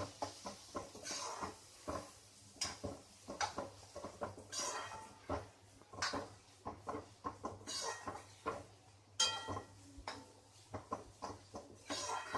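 A spoon stirring and scraping sliced onions frying in oil in a pan, with irregular clinks and scrapes against the pan and a couple of ringing metal knocks.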